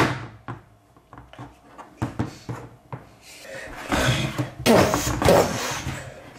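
Small vinyl toy figures handled on a hard tabletop: a few sharp taps and knocks as they are set down in the first three seconds, then a longer rough rubbing noise as a figure is pushed across the surface.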